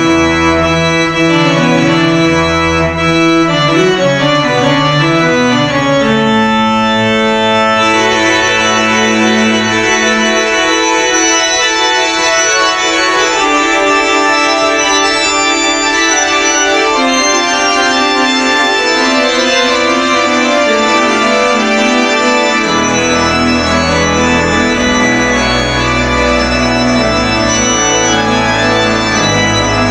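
Church organ playing loud, full sustained chords. The deep pedal bass drops out about ten seconds in, leaving only the higher manual parts, and returns with low held notes a little after twenty seconds.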